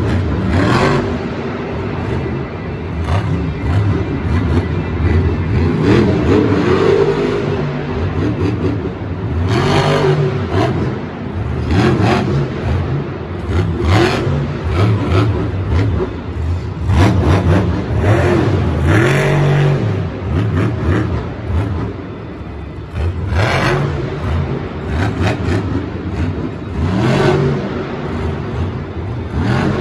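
Monster trucks' supercharged V8 engines revving hard and easing off again and again, the pitch rising and falling in repeated surges as they take the dirt jumps and pull wheelies.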